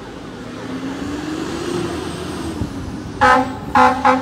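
Road traffic noise, then about three seconds in a vehicle horn sounds in three short, loud blasts.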